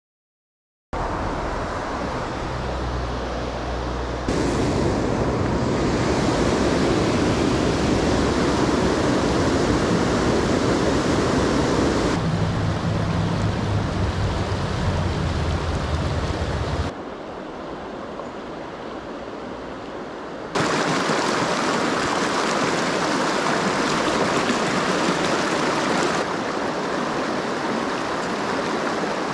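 Fast, shallow mountain river rushing over boulders and stones. It starts about a second in and changes abruptly in loudness and tone several times, from one stretch of rapids to another.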